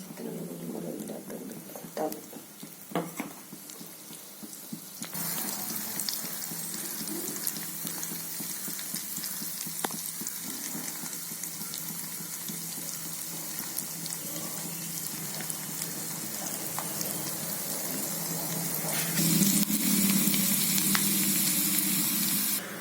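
Prawns frying in hot oil in a pan, a steady sizzle that starts suddenly about five seconds in after a few knocks, and gets louder near the end.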